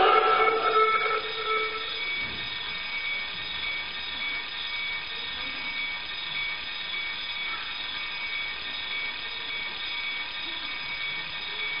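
Alarm clock ringing steadily, a stage sound effect for the prop clock, as music fades out over the first two seconds.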